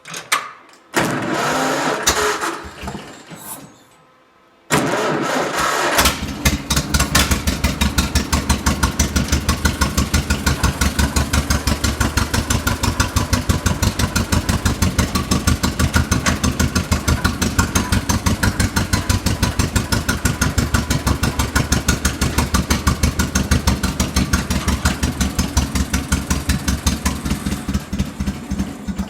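1949 John Deere Model M tractor's two-cylinder engine running with an even, pulsing beat, setting in about five seconds in after a few seconds of irregular clattering noise.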